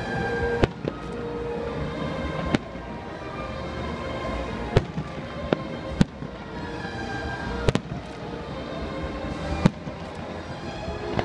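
Aerial firework shells bursting in sharp bangs about every one to two seconds, with music playing steadily underneath.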